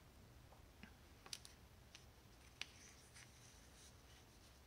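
Near silence: room tone with a few faint, short clicks of a felt-tip pen tip touching the paper.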